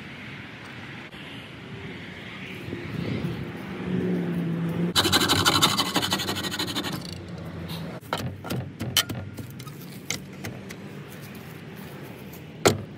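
Metal and wood scraping and rubbing, then a loud couple of seconds of rapid rasping from a hacksaw cutting, about five seconds in. Scattered sharp knocks and taps follow, the loudest near the end.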